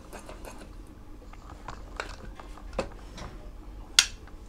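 Faint clicks and light rubbing of metal parts as a shaft in a partly assembled Honda C70 motorcycle engine's crankcase is turned by hand. The parts still rub slightly against each other, a sign that something needs grinding down for clearance. There is a sharper click near the end.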